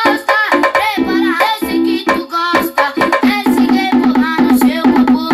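Homemade speaker box with a subwoofer, mid-range driver and tweeter playing loud music with a sung vocal. A steady bass note comes in under the singing about halfway through.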